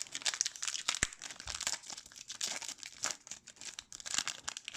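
Crinkling and tearing of a hockey card pack's wrapper as it is handled and opened, a dense run of irregular crackles with one sharper click about a second in.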